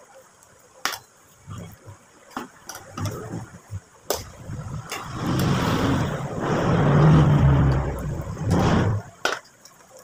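A motor vehicle going by, swelling and then fading over about four seconds in the second half, among scattered light clicks and taps of eating at the table.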